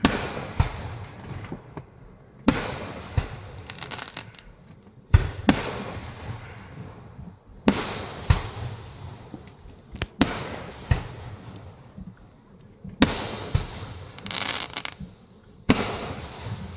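Aerial fireworks bursting: about a dozen sharp booms, often in quick pairs, coming every two or three seconds, each trailing off in an echoing tail.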